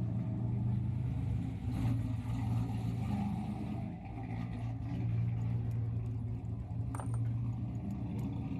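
A vehicle engine idling steadily, with a couple of light clicks about seven seconds in.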